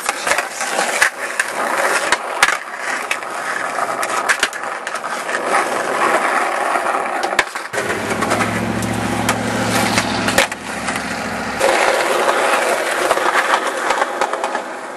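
Skateboard rolling over rough ground, its wheels running continuously with many sharp clacks and knocks of the board. For about four seconds in the middle, a low steady rumble comes in and cuts off abruptly.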